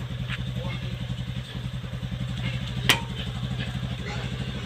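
Small motorcycle engine idling steadily, with one sharp click about three seconds in.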